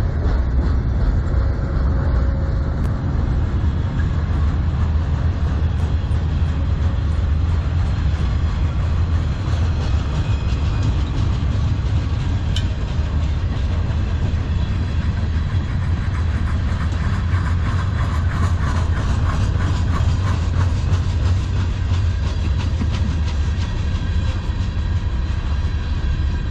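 Freight cars of a manifest train rolling past: a steady rumble with the rhythmic clickety-clack of steel wheels over the rail joints.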